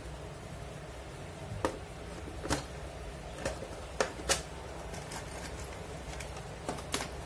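About seven short, sharp clicks or taps at irregular intervals over a steady low hum.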